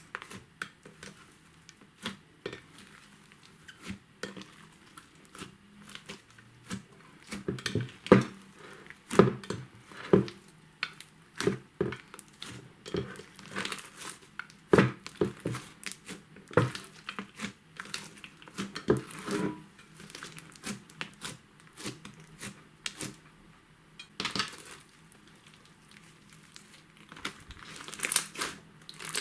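Homemade white slime being mixed and squished, making a run of irregular crackling clicks and snaps, busiest for several seconds in the middle and sparser near the end.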